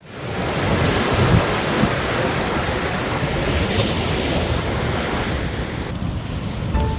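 Sea surf washing on a sandy beach, with wind buffeting the microphone in a low rumble. Near the end the surf noise thins and music comes in.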